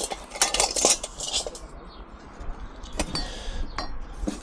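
Small pieces of metal scrap clinking and clattering as they are handled and set down: a run of knocks in the first second and a half, then a few single knocks later.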